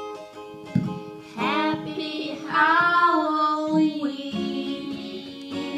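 A child singing a line of a song over instrumental accompaniment with steady held notes; the voice is loudest in the middle.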